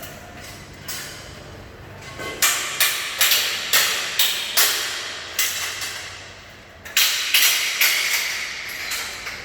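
Repeated sharp metal clanks and knocks, about two a second in two runs with a pause near the middle. They fit scaffolding parts being struck loose and taken apart.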